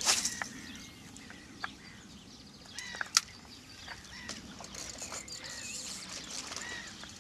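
A fishing rod cast swishes at the start. A single sharp click comes about three seconds in, and birds chirp throughout.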